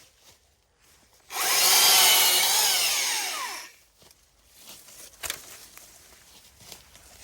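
Stihl MSA 300 battery chainsaw running in one short burst of about two and a half seconds while bucking the felled tree, its electric whine sagging in pitch before it cuts off. A few faint knocks follow.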